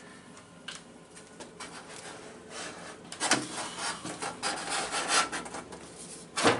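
Stainless steel double kitchen sink being worked into its countertop cutout, rubbing and scraping against the counter edge in irregular strokes that get busier about halfway through, with one sharp knock near the end.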